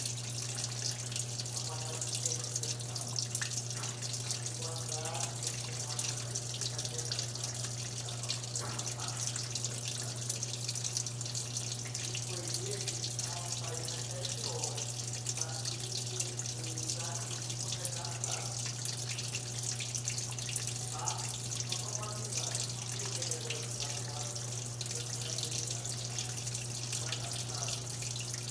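Water running steadily into an Electrolux Turbo Economia LTE12 top-loading washing machine as it fills, with a constant low hum underneath.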